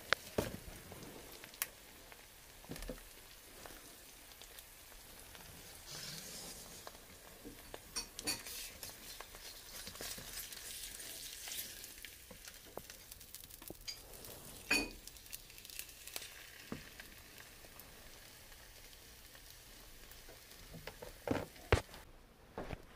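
An egg frying in a nonstick pan, sizzling steadily, with now and then the click and scrape of a spatula against the pan as the egg is lifted and turned. The sizzle drops away near the end.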